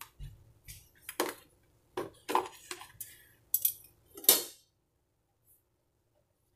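Dishes and cutlery clinking and knocking, a string of short sharp clanks and clicks that stop about four and a half seconds in.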